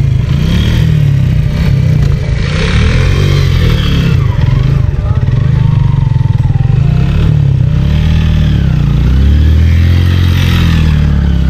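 Motorcycle engine revving unevenly, rising and falling and pulling harder after about 8 s, as the rear tyre spins and slides in loose sand during tight circles, with bursts of spraying grit.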